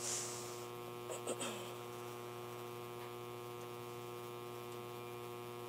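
Steady electrical mains hum with many even overtones, carried through the lecture's sound system or recording. A brief soft sound right at the start and a few faint clicks just over a second in.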